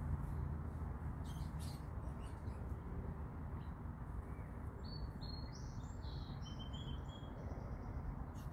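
A small bird chirping a run of short high notes from about five seconds in, over a steady low outdoor rumble.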